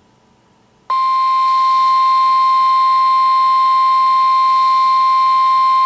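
NOAA Weather Radio 1050 Hz warning alarm tone, one long steady beep starting about a second in, played through the Oregon Scientific WR-3000 weather radio's speaker. It is the alert tone that heralds a warning broadcast.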